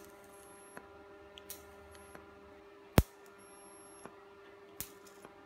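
TIG welding tacks on a steel pipe: a faint steady hum with a few light clicks, and one sharp click about three seconds in.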